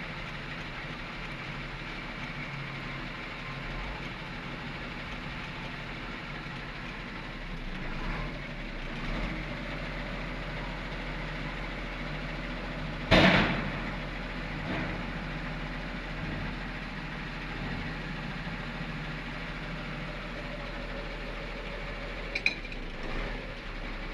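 Heavy diesel engine of earth-moving machinery running steadily. A single loud bang comes about halfway through, with a few lighter knocks before it and near the end.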